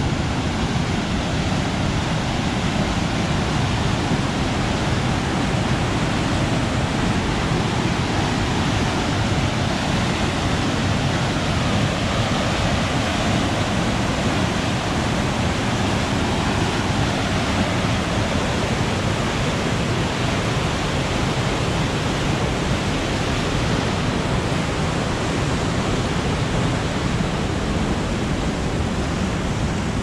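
Waterfall in high snowmelt flow: a loud, steady rush of falling water.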